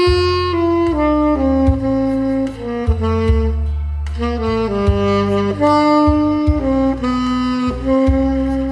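Saxophone playing a slow, held melody note by note over a backing track with a bass line and drum beats.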